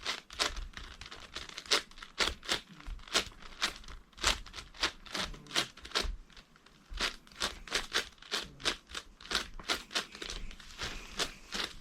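A 10x10 Rubik's cube being turned one-handed during a speedsolve: quick, irregular plastic clicks and clatter of its layers, about three or four a second.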